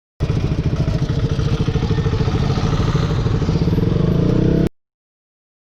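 Motorcycle engine running with a rapid, even exhaust beat. It starts abruptly just after the beginning and cuts off suddenly about three-quarters of the way through.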